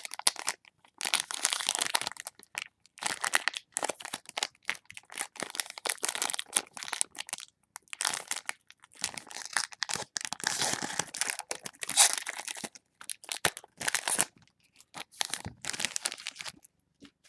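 A trading-card pack's plastic wrapper crinkling and tearing in irregular bursts as it is worked open, a pack that is hard to open.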